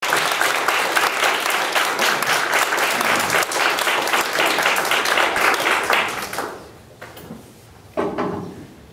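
Audience applause, dense clapping that dies away about two-thirds of the way through. Near the end comes a single short sound that rings out briefly.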